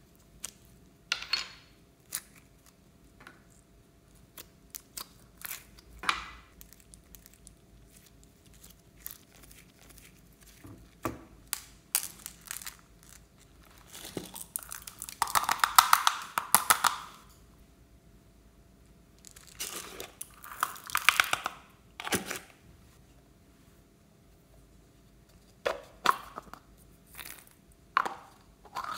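Hands handling small plastic toys and decorations, making scattered clicks and taps with crinkling. The longest crinkling comes about halfway through and again a few seconds later.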